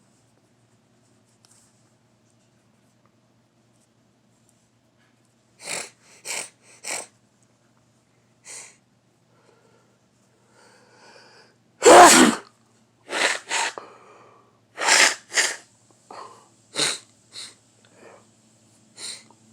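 A person sneezing: a few short bursts of breath, a faint build-up, then one loud sneeze about twelve seconds in, followed by a string of shorter, sharp bursts.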